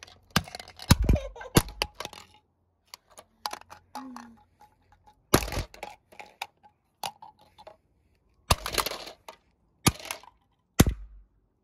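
Hammer blows on a plastic Peppa Pig toy telephone, breaking it apart: a series of sharp, irregularly spaced strikes, some single and some in quick clusters.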